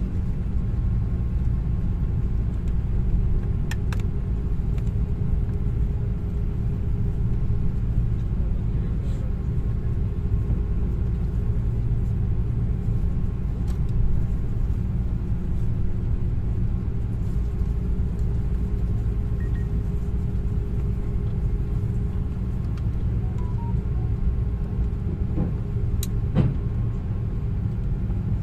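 Steady low rumble of an airliner taxiing, heard inside the cabin: engine and rolling noise, with a few faint clicks about 4, 14 and 26 seconds in.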